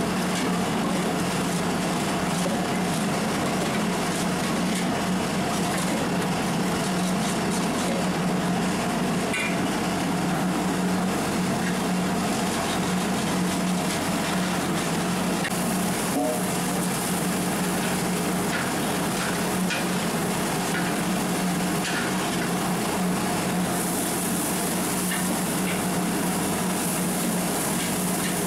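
Tomato-onion masala frying in a large metal pot, sizzling as a long metal ladle stirs it and scrapes the pot now and then, over a steady low hum.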